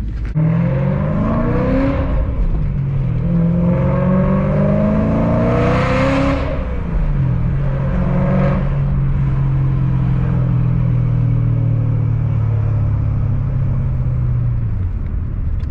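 Car engine accelerating: the pitch climbs twice, drops around the middle as if at a gear change, then holds a steady lower note before fading out near the end.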